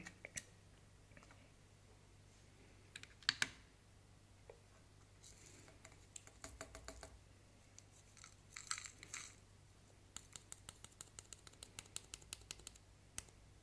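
Faint clicks and taps of small glass dishes handled on a pocket digital scale, with a scraping rustle partway through and a quick run of light ticks, several a second, near the end as dried silver chloride granules are tipped from one glass dish into the other.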